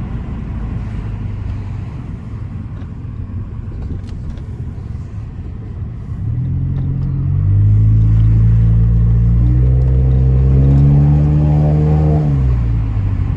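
Hyundai i30 engine and exhaust running without a muffler: a low rumble while cruising, then a hard acceleration from about six seconds in. A loud drone climbs slowly in pitch for several seconds and drops off suddenly near the end as the throttle is lifted.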